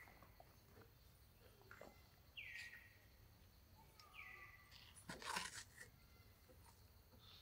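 A bird calls several times, each call a short whistled note that drops in pitch and then holds briefly. About five seconds in there is a brief loud rustle as the macaque handles the milk carton.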